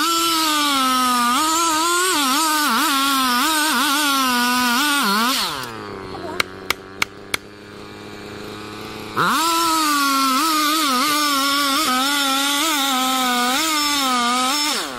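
Petrol chainsaw cutting into a large tree trunk at full throttle, its pitch wavering under load, for about five seconds. It drops to idle, with a few sharp clicks, then revs up and cuts again from about nine seconds in, settling back to idle right at the end.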